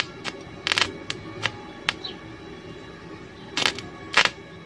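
Stick (MMA) welding arc from a Makita MMA-400 inverter welder on a rusty steel pipe: short sputtering crackles as the electrode strikes, catches and breaks the arc, a string of separate bursts with the loudest two near the end. The welder is set at about 150 amps.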